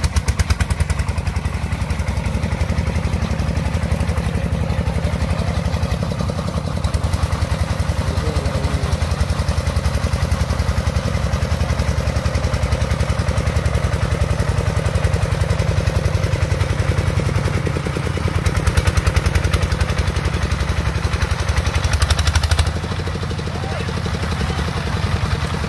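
Single-cylinder diesel engine of a công nông (two-wheel tractor cart) running with a steady, fast chugging beat, getting louder for a few seconds near the end as it works harder.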